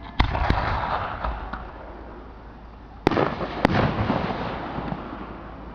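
Two aerial fireworks shells bursting, each with a sharp bang about three seconds apart, followed by a second or two of noise trailing off.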